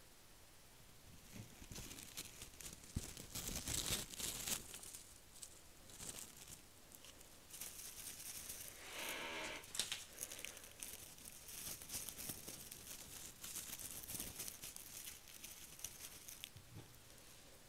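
Thin gold leaf being crumpled and crinkled in the fingers close to the microphone: crisp, irregular crackling that comes and goes, with a brief pitched sound about halfway through.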